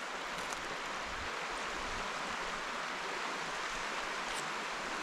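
A creek running steadily, heard as an even rushing hiss of flowing water.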